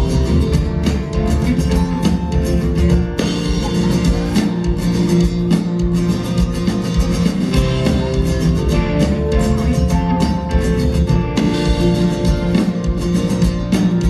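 Live rock band playing an instrumental passage of guitar over a drum kit, without singing.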